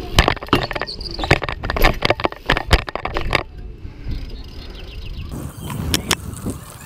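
BMX bike rolling over a path, heard from a handlebar-mounted camera: a rapid clatter of chain and frame rattles and clicks for the first few seconds, then a steadier rumble of tyres on the ground with a few more clicks near the end.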